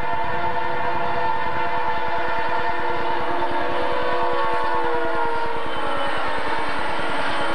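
Santa Fe diesel freight locomotives sounding a multi-chime air horn for a grade crossing as they pass close by, the horn chord sliding down in pitch about three to five seconds in and fading near the end. Beneath it, the diesel engines rumble and the wheels clatter on the rails.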